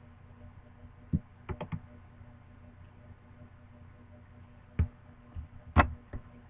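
Scattered clicks and taps on a computer keyboard and mouse, with a quick run of three or four just over a second in and a louder pair near the end, over a faint steady hum.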